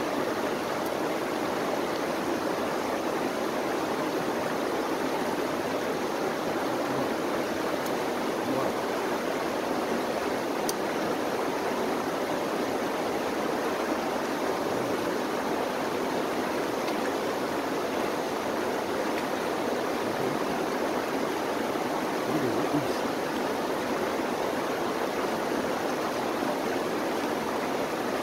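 Shallow rocky stream flowing over stones, a steady, unbroken rush of water.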